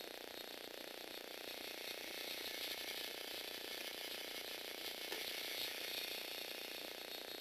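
Lego Power Functions motor driving the plastic gear train of a two-legged Lego Technic walking robot: a steady whirring, ratcheting clatter of gears that grows a little louder about two seconds in.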